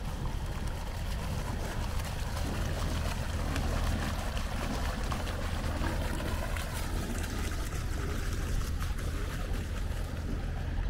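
Steady low drone of an engine running, under a broad even hiss.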